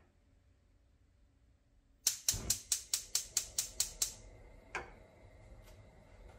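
Gas stove burner's spark igniter clicking rapidly, about six clicks a second for two seconds, with one more click a little later, as the burner lights; the flame then burns with a faint steady rush.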